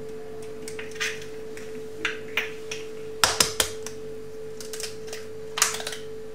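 Sharp taps and clicks of eggs being cracked against the edge of a plastic mixing bowl, a few single taps followed by a louder quick cluster about three seconds in and another near the end. A steady hum runs underneath.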